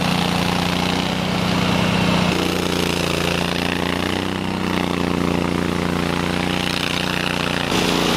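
Honda iGXV800 V-twin petrol engine of a Stella URS100 remote-controlled tracked rotary mower, running steadily while the machine pushes through brush and brambles. Its note shifts slightly about two seconds in and again near the end.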